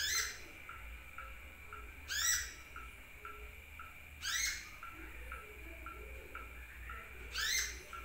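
Sunbird (Indonesian 'kolibri') calling: four loud, quick sweeping chirps spaced about two seconds apart, over a faint regular ticking about twice a second.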